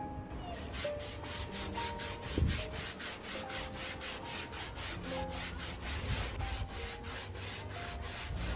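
A stiff brush scrubbing a wet carpet in quick, even strokes, about three to four a second.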